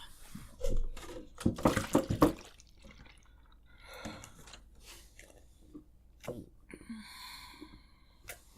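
Mouth noises of someone suffering through a very hot chip: a run of wet clicks and smacks about a second in, then breathy hisses of air drawn and blown out through the mouth against the burn.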